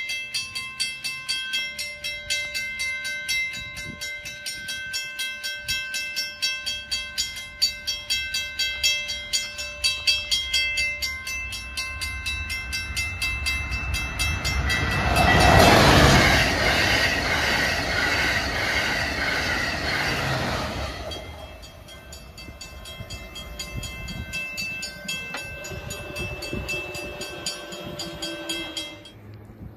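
Railroad grade-crossing warning bell ringing in rapid, even strokes while an Amtrak Acela Express trainset rushes past at speed for about six seconds midway. The bell stops near the end.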